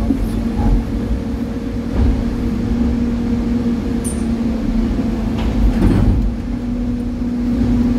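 Excavator's diesel engine running steadily under hydraulic load, heard from inside the operator's cab as the boom swings and lifts a bucket over a dump truck. A brief louder rush comes just before six seconds in.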